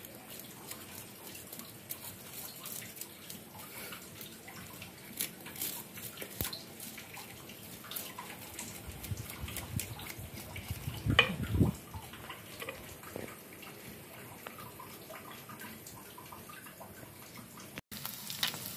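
A knife scraping scales off and cutting into a threadfin bream on a wooden chopping board: wet scrapes and light knocks, with a louder run of strokes about eleven seconds in. Near the end the sound cuts to fish sizzling as it fries in oil.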